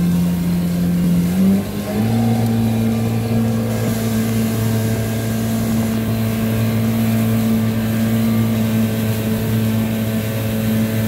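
Yamaha SX190 jet boat's engine running at speed, a steady drone that steps up to a higher pitch about two seconds in and then holds.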